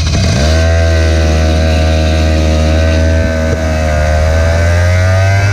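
Racing go-kart engine catching abruptly and running at a steady low speed as the kart moves off, its pitch rising slightly near the end. Heard close up from the kart itself.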